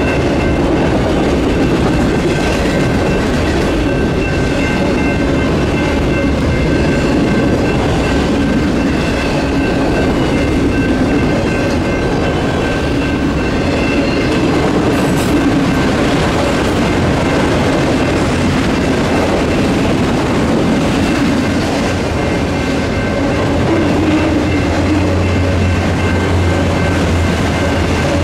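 Freight train of autorack cars rolling steadily past a grade crossing: a continuous rumble and clatter of steel wheels on rail.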